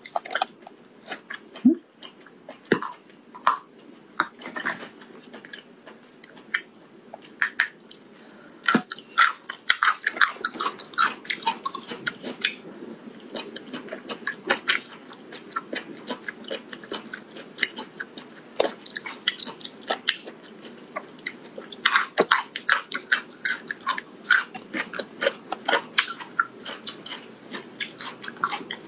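A person chewing and biting food close to the microphone: irregular wet smacks and clicks of the mouth, with a few crunchier bites. It gets busier about ten seconds in and again past twenty seconds.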